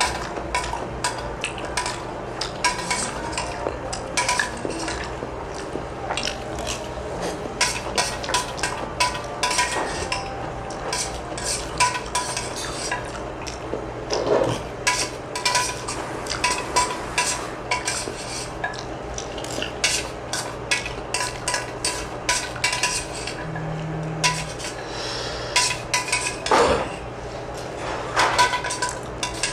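Close-up eating sounds: utensils clinking and scraping against bowls and dishes in many quick, irregular clicks.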